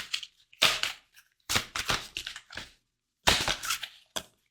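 Tarot cards being handled and shuffled: three bursts of quick, crisp card snaps and flicks, about half a second in, around two seconds in and again near the end.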